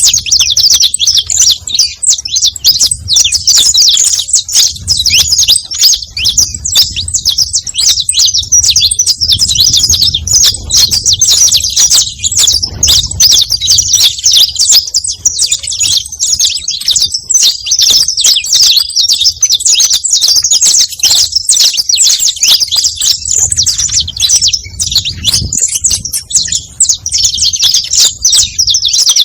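Saffron finch (canário-da-terra) singing continuously: a dense, unbroken run of rapid high chirps and trills.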